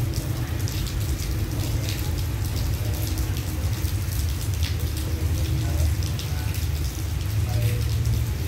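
Rain falling, with scattered pattering drops over a steady low rumble.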